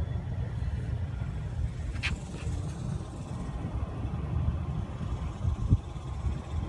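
Engine of a 2000 TUG MA50 airport baggage tractor idling with a steady low rumble. A short click comes about two seconds in and a dull knock near the end.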